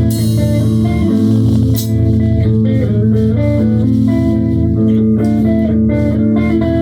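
Music: a guitar and bass guitar playing sustained, steady notes, with drums.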